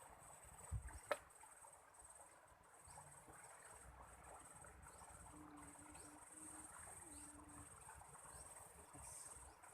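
Faint, steady high-pitched insect trilling, a continuous fast pulsing like crickets at night. A thump and a sharp click about a second in are the loudest sounds.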